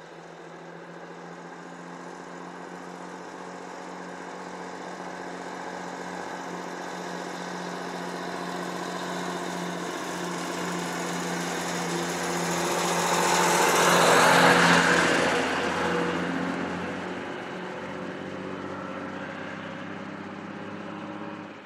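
Fully loaded logging truck's diesel engine pulling steadily as it approaches, growing louder. It passes close about 14 seconds in with a rush of engine and tyre noise, then fades as it drives away.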